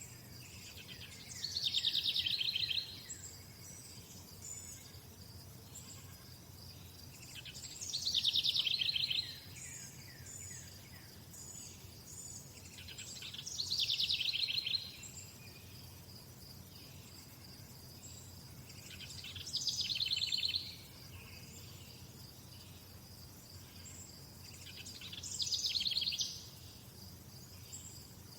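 A bird sings a fast trilled phrase about every six seconds, five times. Under it runs a steady high insect chirring, with faint high chirps from other birds.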